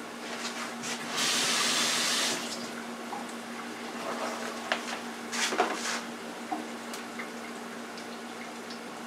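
Battered mushrooms dropped into the hot oil of an electric deep fryer: a loud burst of sizzling about a second in, lasting about a second, then settling to a low, steady frying hiss. A few short knocks follow midway.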